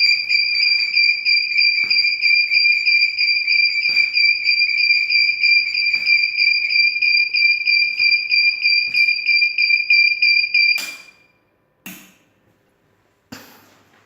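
LPG gas detector alarm panel sounding its high-pitched pulsing alarm tone, triggered by a test of the second gas detector zone. The tone cuts off suddenly about 11 seconds in, followed by a few sharp clicks.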